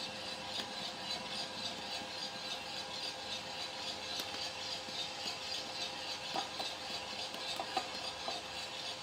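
Cormorant CR600 gas-fired drum coffee roaster running late in a roast: a steady hiss from the burner and fan with the beans tumbling in the turning drum and a faint steady hum. A few faint knocks come near the end as the sample trier is handled.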